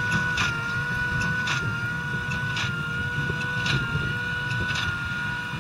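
Case IH Puma 200 CVX's 6.7-litre six-cylinder diesel running under load with a Claas Quadrant 5200 large square baler working behind it: a steady drone with a whine, and a sharp stroke repeating about once a second.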